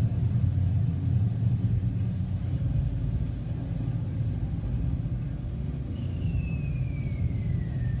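Recorded World War II air-raid sound effects played back in a brick shelter tunnel: a steady low rumble, with the falling whistle of a dropping bomb over the last two seconds.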